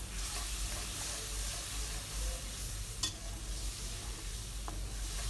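Onion-garlic spice paste sizzling in a metal kadai while a metal spatula stirs and scrapes it; this is the masala being fried down with a splash of water so it doesn't burn. A single sharp click comes about three seconds in.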